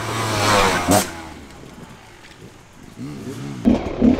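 Dirt bike engine revving, its pitch climbing through the first second and ending in a sharp crack, then dropping away; about three seconds in, quick throttle blips rise and fall before a sudden louder burst of engine noise near the end.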